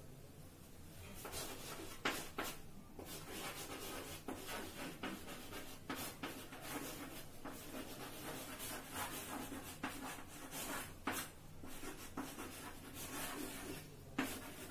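Chalk scratching on a blackboard as a line of words is written out in short strokes. It starts about a second in, with a couple of sharper taps where the chalk strikes the board.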